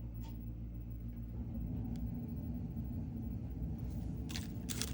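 A low steady hum and rumble, growing rougher about a second and a half in, with brief crackly rustling near the end.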